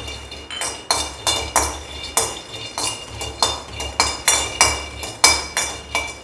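A metal spoon scraping and knocking against a stainless-steel kadai as raw peanuts are stirred in dry-roasting, about three strokes a second, with the pan ringing briefly after each stroke and the peanuts rattling across the metal.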